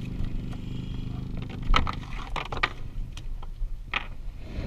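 Boat motor idling steadily, with several sharp knocks and clatter over it, the loudest about two seconds in and another near the end.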